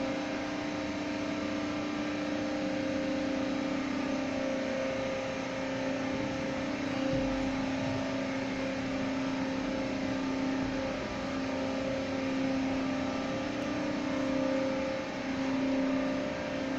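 Industrial machinery running steadily in a power-plant equipment room: a constant drone with a steady two-tone hum and no change in speed.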